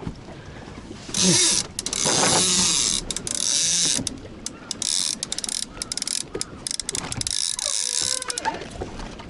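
Fishing reel clicking in long, rapid bursts of high-pitched rasping, each lasting about a second, with short breaks between them.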